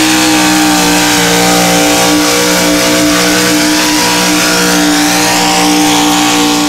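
Diesel pulling tractor running wide open under load, its engine held at high revs in one steady loud tone that sags slowly in pitch as it drags the weight-transfer sled.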